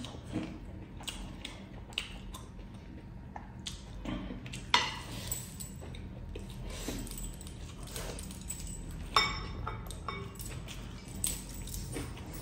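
Eating by hand from a glass bowl: fingers scooping wet food, with metal rings clinking against the glass, two sharper ringing clinks about five and nine seconds in, and chewing in between.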